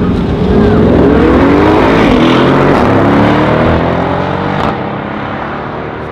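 Audi RS6 C7 Avant's twin-turbo V8 with an Akrapovic exhaust and a Mercedes E63 AMG launching together from a drag-race start at full throttle, their engine notes rising through the gears. Loud for about four and a half seconds, then the level drops suddenly.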